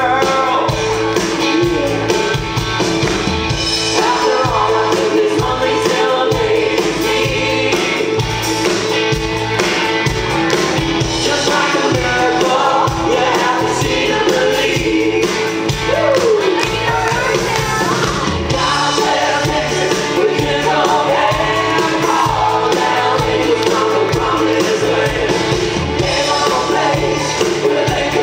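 Live stage-show music: singers over a band playing an upbeat song with a steady beat.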